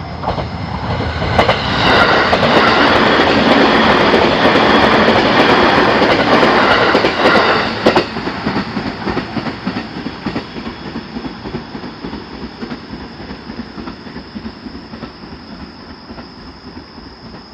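A train passing close by: a loud rush with rapid clicking rises about two seconds in and holds for about six seconds. It drops off sharply, then fades away, over a thin high steady tone.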